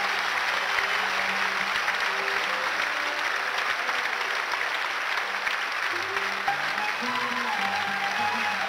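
Audience applauding after a sung phrase, with an Arabic music ensemble holding soft instrumental notes underneath. The instruments come forward more clearly in the second half.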